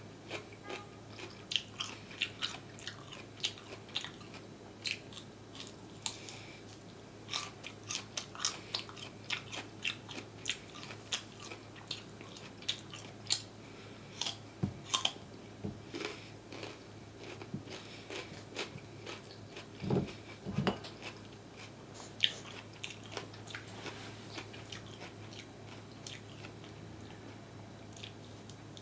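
Close-miked eating sounds: crisp, irregular crunching and chewing of crunchy food, with a couple of heavier thuds about twenty seconds in over a faint steady hum.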